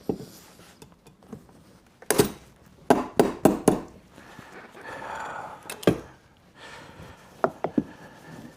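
Upholstery work on a chair's spring unit and webbing straps: a run of sharp clacks and knocks, several in quick succession about three seconds in and a few more near the end.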